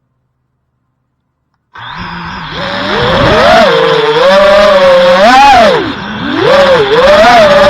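5-inch FPV quadcopter's brushless motors and propellers whining, the pitch swooping up and down over and over with the throttle. The sound cuts in suddenly from silence about two seconds in.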